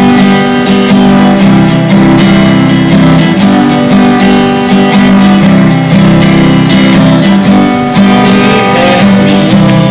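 Acoustic guitar strummed in steady, rhythmic chords.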